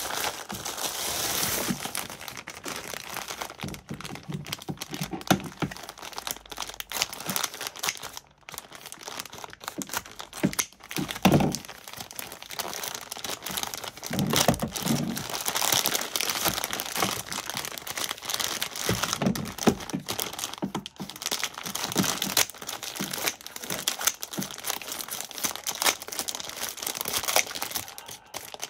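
Plastic packaging crinkling and rustling as hands pull open a bubble mailer and work at a clear plastic bag, with occasional sharper clicks and a louder knock about eleven seconds in.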